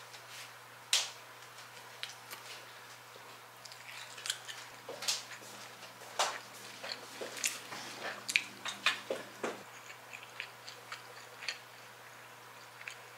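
Eating sounds: chewing and biting food, with small clicks and taps from wooden chopsticks and dishes, and one sharper knock about a second in.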